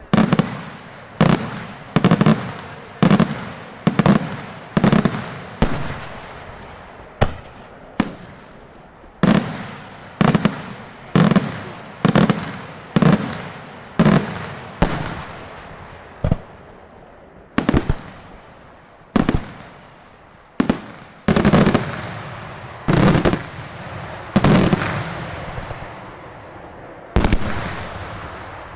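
Daytime fireworks display: shells bursting in a long series of loud, sharp bangs, about one a second, each followed by an echoing tail, with a few short pauses between runs.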